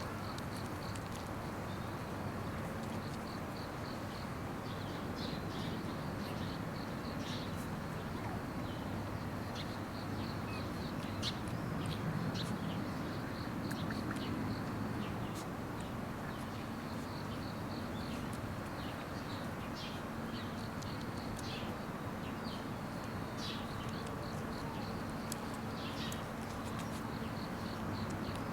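Shiba Inu puppies suckling from their mother, with many short high squeaks scattered irregularly over a steady low hum.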